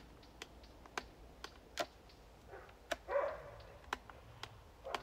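Sharp clicks and light knocks at irregular intervals, about eight in all, with a short bark-like call about three seconds in.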